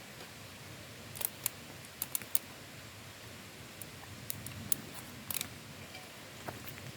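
Campfire of thick cedar logs crackling, with sharp irregular pops over a soft hiss; the crackle comes from water still held in the wood.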